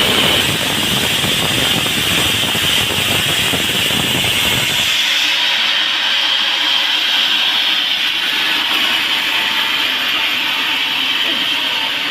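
Sawmill saw running at a teak log: a loud, steady rushing noise with a bright hiss on top. About five seconds in the low rumble stops abruptly, leaving the hiss.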